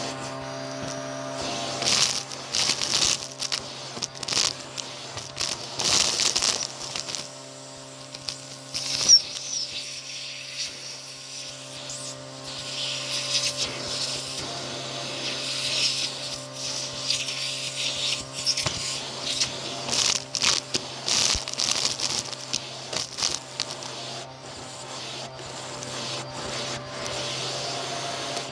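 Hands sifting through a pile of vacuumed-up dust, hair, sequins and plastic gems, giving irregular rustling and crackling with one sharper click partway through, over a steady low hum.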